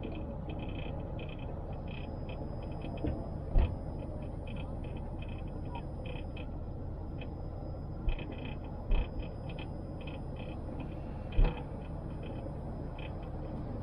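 Car driving down a steep mountain road: a steady low road and engine rumble, with four sharp thumps spread through.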